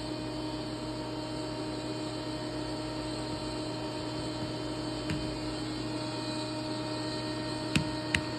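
Fadal CNC vertical machining center powered up, humming steadily with several constant tones. Near the end, two sharp clicks of keys being pressed on its control keypad.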